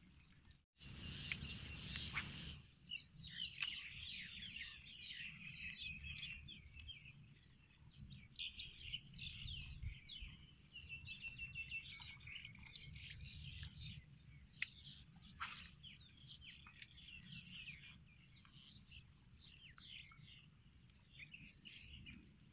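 Many small birds chirping and calling from the surrounding wetland, a busy run of short, high chirps, over a low background rumble with a brief louder gust of noise near the start.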